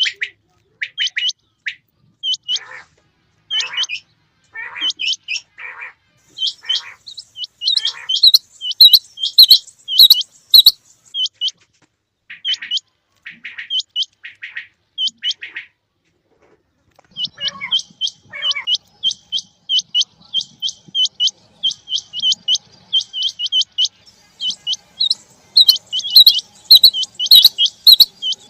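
Quail calling: short, clipped high notes repeated in quick clusters of two or three, broken by pauses, with lower notes mixed in over the first few seconds. The calls are loudest about 8 to 11 seconds in and again near the end.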